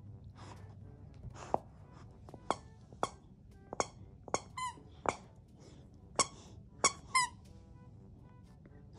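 Squeaky plush toy squeaked repeatedly as a Newfoundland puppy bites and chews it: about ten short, high squeaks at irregular intervals, some wavering in pitch.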